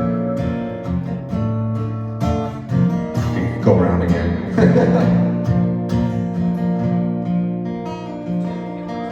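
Acoustic guitar played live, chords ringing on, with a harder, fuller strum a little before the middle.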